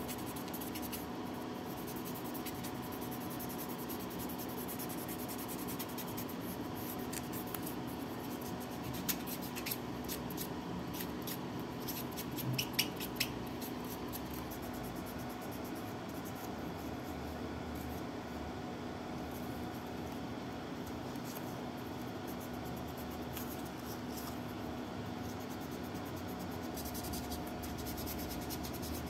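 Sanding sponge rubbing against small hard plastic model parts, a soft scratchy rubbing over a steady low hum, with a few light clicks about halfway through.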